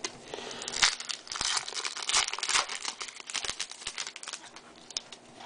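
Foil wrapper of a Topps baseball card pack being torn open and crinkled: a run of irregular crackling rustles that dies down near the end.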